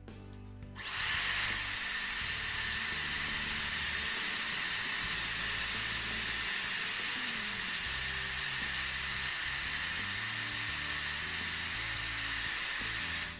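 Dyson Airwrap hair styler blowing: a steady rush of air with a high-pitched motor whine. It switches on about a second in and cuts off near the end.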